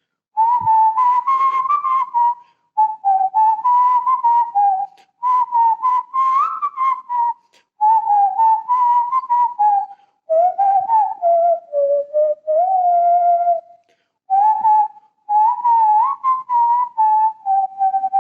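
A person whistling a melody in short phrases, the pitch rising and falling, with brief breaks between phrases.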